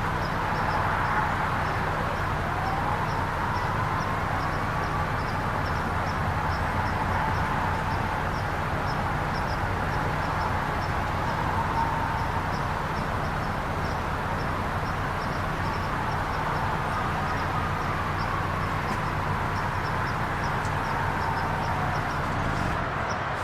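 Steady low hum with a constant noisy wash, overlaid by fast, regular, high-pitched ticking at about three ticks a second.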